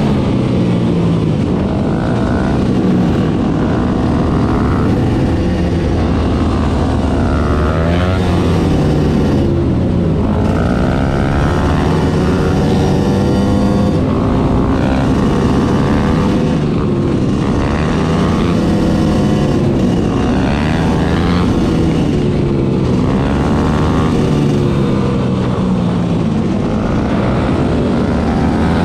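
Many motorcycle engines running at once, revving up and down and passing, their pitches rising and falling over one another in a continuous loud din.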